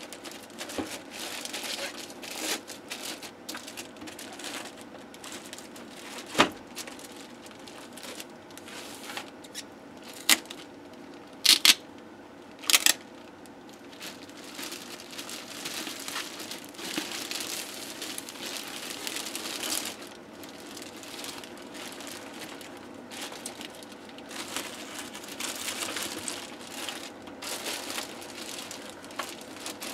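Clear plastic bag and foam packaging wrap crinkling and rustling as they are pulled off an electronics unit, with several sharp clicks between about six and thirteen seconds in.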